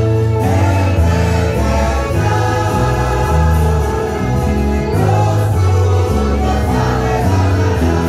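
Church choir singing a hymn over a plucked-string band of mandolins and guitars, with saxophone and accordion also playing.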